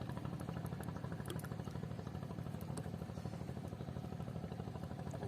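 A small engine running steadily at a low, even pulse, like idling.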